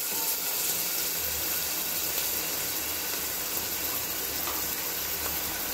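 Chopped onions sizzling steadily in hot oil in an open pressure cooker, with heavy rain falling outside.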